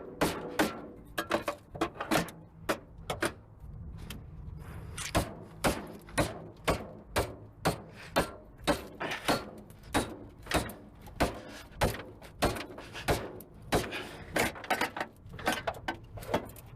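Hand tools knocking and clicking on scrap car parts during disassembly: sharp irregular knocks, about two or three a second, over a steady low hum.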